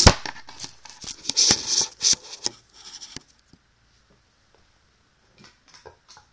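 Handling noise from the recording phone: a quick run of rustling, rubbing and knocking for about three seconds, then near quiet with a few faint ticks near the end.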